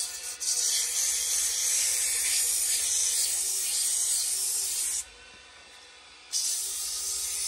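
Coarse sandpaper held against a canary wood tool handle spinning on a wood lathe: a steady, loud hiss of sanding that stops for about a second, about five seconds in, when the paper is lifted off, then starts again. The lathe's faint steady hum runs underneath.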